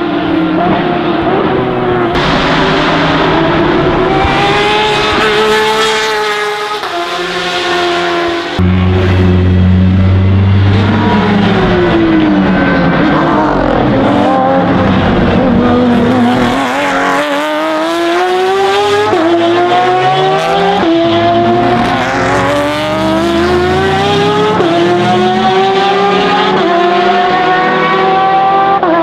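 Porsche 911 RSR (991.2) race cars' 4.0-litre mid-mounted flat-six engines with open exhaust, passing at speed. The pitch sweeps down as a car goes by, then climbs through several quick upshifts, each marked by a sudden drop in pitch. The sound changes abruptly about nine seconds in.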